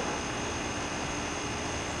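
Steady background hiss with a low, even hum, unchanging throughout.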